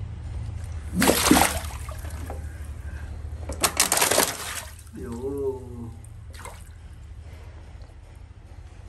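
Water splashing hard twice in a shallow tiled pond as a young crocodile lunges and thrashes at a floating plastic bottle: once about a second in and again around four seconds in.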